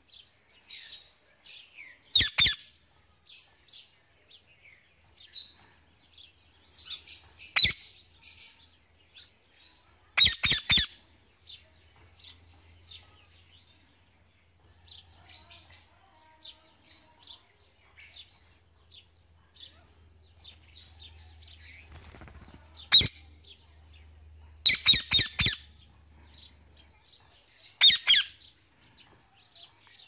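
Indian ringneck parakeet calling: loud, sharp calls at intervals, some in quick clusters of three or four, with softer chirping between them.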